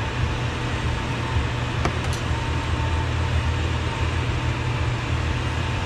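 Steady mechanical hum and hiss, with two light clicks about two seconds in.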